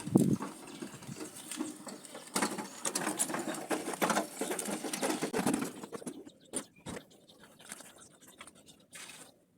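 Broom sweeping, with dense scratchy strokes of the bristles on the ground for about six seconds, then a few scattered scrapes and knocks.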